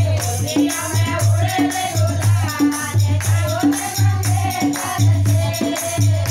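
Women's group singing a Holi folk song, with a dholak barrel drum keeping a steady beat of deep strokes and higher slaps, and hand clapping.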